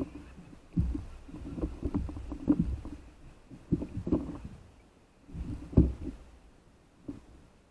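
Small waves slapping and knocking against a stand-up paddle board, heard through a camera fixed to the board's deck as irregular muffled low thumps and sloshes. The loudest knock comes about three-quarters of the way through.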